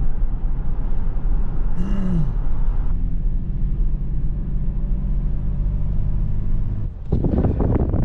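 An engine running steadily with a low hum. A brief rising-and-falling squeak comes about two seconds in, and the hum stops about seven seconds in.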